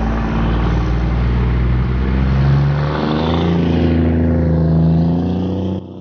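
Scania truck's diesel engine running under load as the truck and trailer pull away and pass close by. The engine note shifts in pitch about halfway through, and the sound cuts off abruptly near the end.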